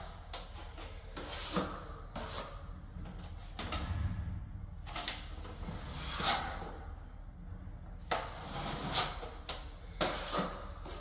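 Steel plastering trowel scraping wet filler against a hawk and along a wall-to-ceiling angle: a run of short, irregular scrapes as the filler is loaded, cut back and pressed in.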